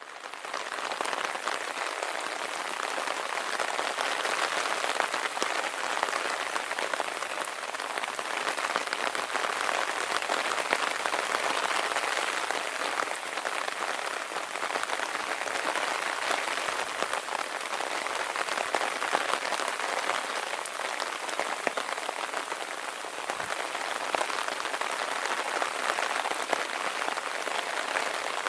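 Steady heavy rain falling, an even hiss of drops on the ground and surfaces.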